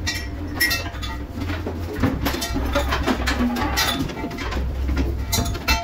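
Fishing boat's engine droning steadily under irregular knocks and clatter as orange marker buoys and their buoy line are thrown over the rail to start setting a halibut longline.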